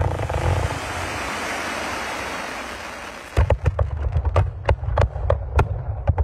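Fireworks display: a dense, hissing crackle of ground fountains for about three seconds, fading, then a quick run of sharp bangs from shells and cakes, about three or four a second, over a low rumble.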